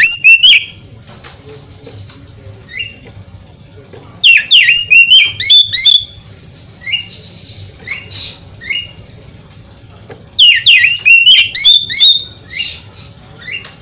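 Oriental magpie-robin singing: loud bursts of rapid, sharply rising and falling whistled notes about every six seconds, with short single upswept chirps between the bursts. It is a lure call meant to rouse a kept magpie-robin to fan its tail and sing.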